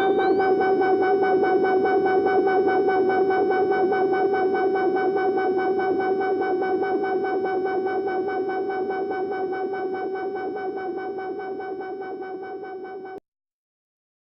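Negistor Cracklebox DIY drone generator playing one steady pitched drone through a dual auto-filter, a filter sweep settling about half a second in. The drone slowly fades, then cuts off suddenly about thirteen seconds in.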